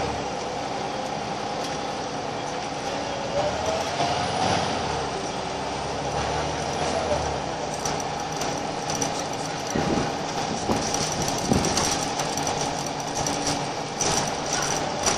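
Scania L94UB Wright Solar single-deck bus heard from inside while driving: its rear-mounted diesel engine and road noise run steadily, with a rising engine note a few seconds in. Short rattles and knocks from the bus body come in the second half.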